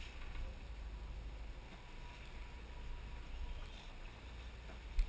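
Sport-fishing boat under way at trolling speed: a steady low engine drone with wake wash. A single short thump sounds near the end.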